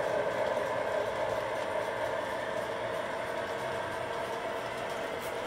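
O-gauge model passenger train rolling steadily along the track, a continuous rumble and clatter of metal wheels on rail, easing slightly in loudness after the first second or so.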